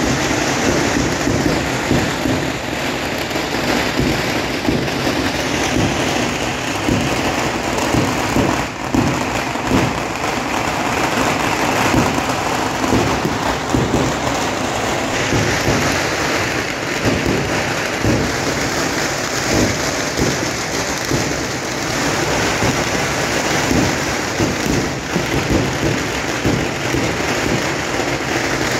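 A long string of firecrackers going off in a dense, continuous crackle of small bangs.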